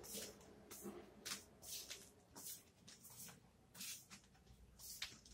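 Faint shuffling footsteps of a person walking on a hard floor, about two steps a second.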